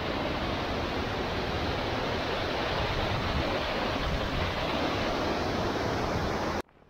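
Steady rush of white water as a mountain river pours over a series of small rock-step cascades. It cuts off suddenly near the end.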